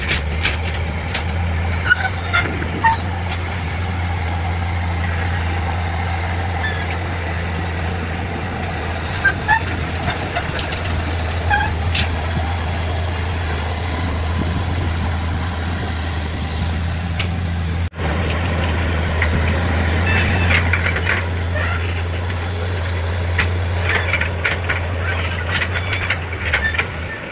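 Kobelco SK200 excavator's diesel engine running steadily under load while digging, with scattered clanks and short high squeaks from the working bucket and arm.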